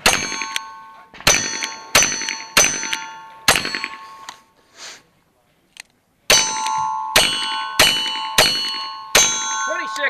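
Ten .22 rimfire shots from Ruger Single Six revolvers, each answered by the ringing of a steel target: five shots less than a second apart, a pause of about two and a half seconds, then five more.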